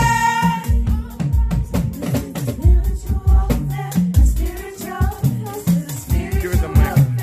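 Music: a song with a steady beat of heavy bass and sharp percussion hits, with a sung melody line over it.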